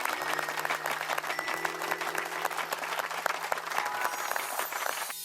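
Applause, a dense steady clapping over background music; the clapping stops about five seconds in, leaving the music.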